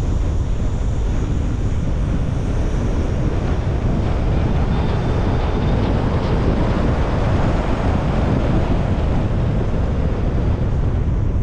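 Steady wind and road noise of a car driving, with wind buffeting the microphone; it swells slightly about halfway through.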